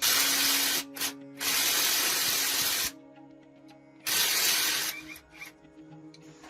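Several loud bursts of pressurised hissing spray that start and cut off abruptly: one at the start, a brief puff, a longer one lasting about a second and a half, another short burst, then two quick puffs, with faint background music underneath.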